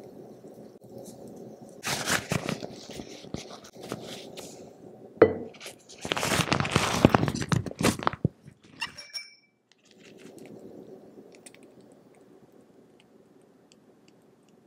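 A disposable piping bag crinkling and rustling as it is handled and filled with soft batter, with a sharp knock about five seconds in. Near the end a short ringing tap sounds, like the bag's tip touching a drinking glass.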